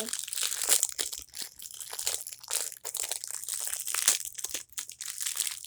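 Packaging crinkling and crackling as it is pulled open by hand through a freshly cut hole, a dense run of irregular crackles.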